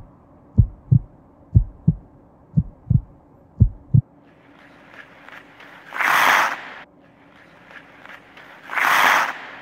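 A heartbeat sound effect: four low double thumps, lub-dub, about a second apart, stopping about four seconds in. Then a steady hiss with two loud swooshes, each under a second long, at about six and nine seconds.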